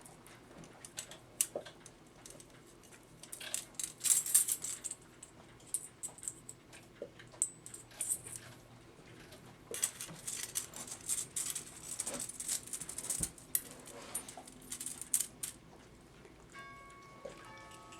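Metal clock parts being handled: irregular clicks, light clinks and scratchy scrapes as a greased mainspring is worked back onto its arbor in an antique clock movement. The handling is busiest in two spells, in the first third and the middle.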